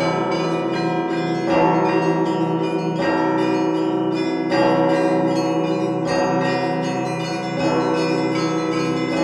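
Russian Orthodox church bells rung together in a peal, heard close up from the bell tier: a heavy bell struck about every one and a half seconds under a fast, dense pattern of smaller, higher bells.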